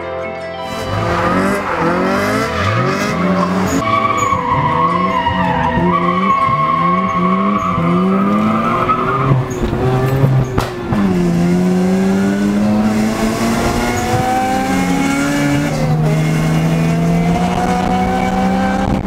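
Car engine revving up and down again and again, with tires squealing through the first half. A short knock about halfway through, then the engine settles into a steadier drone as the car drives on.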